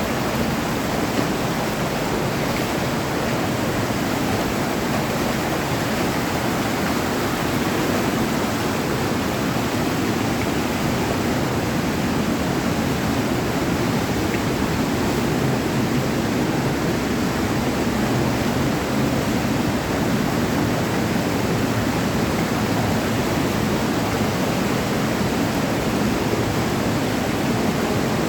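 Mountain stream in a gorge rushing steadily over rocks, a loud, unbroken roar of water.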